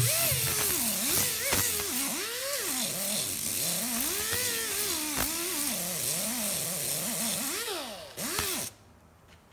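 Pneumatic angle die grinder with a 3-inch abrasive disc sanding a metal part: a hiss with a whine that wavers up and down in pitch. The grinder stops about eight seconds in, spins up briefly once more, then cuts off.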